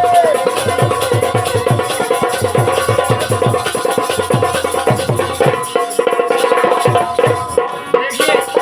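Instrumental break in a Bundelkhandi Rai folk song: a drum beats a quick, steady rhythm of about three or four strokes a second under a held melody line. The drum strokes thin out a little past halfway.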